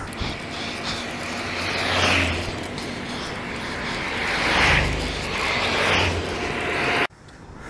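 Road traffic: vehicles passing close by one after another, each swelling up and fading away, over a steady background rush. The sound cuts off abruptly near the end.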